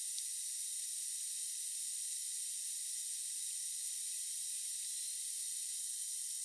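Steady, even high-pitched hiss with nothing in the low range underneath.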